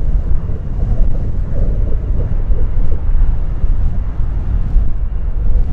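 Jet airliner engines rumbling loudly and steadily, with wind buffeting the microphone.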